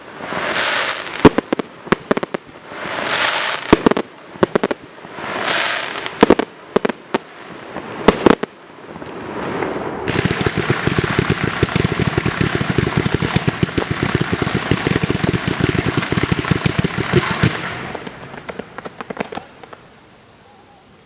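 Fireworks display: swelling whooshes and sharp bangs for the first several seconds. About ten seconds in, a dense, fast crackling of many small reports starts, which thins out and dies away near the end.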